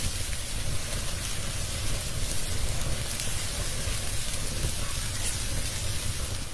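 Chicken pieces frying in hot oil in a wok: a steady sizzle with small crackles, over a low rumble.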